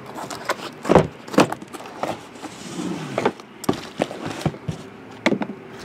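Crackling and crinkling of plastic wrap and cardboard packaging as a sealed trading-card box is torn open, with many irregular sharp clicks.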